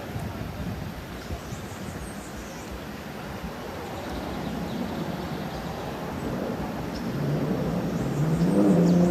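Outdoor rumble with wind noise on the microphone, growing louder, and a steady low hum with overtones, like a motor, that comes in about seven seconds in.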